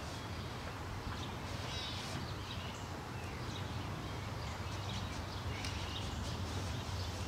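Outdoor ambience: small birds chirping now and then over a steady low hum.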